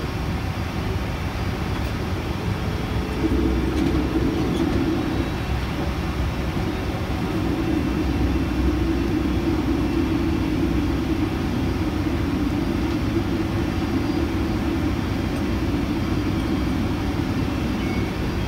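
Steady cabin noise inside a Boeing 747-400 on the ground, its Rolls-Royce engines running at idle: a low rumble with a droning hum that grows louder about three seconds in.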